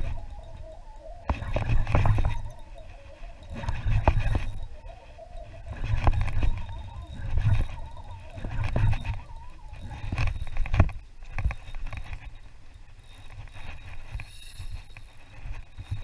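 Daiwa Theory spinning reel being cranked to retrieve a lure, with a faint wavering whine over the first ten seconds or so and a few sharp clicks. Low rumbling swells come and go every second or two throughout.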